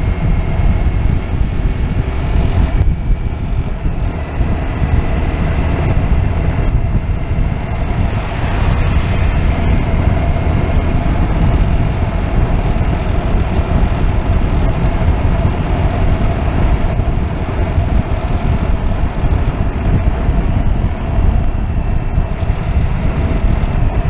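A motorcycle riding at speed: wind buffets the microphone with a heavy rumble, and the engine runs steadily underneath.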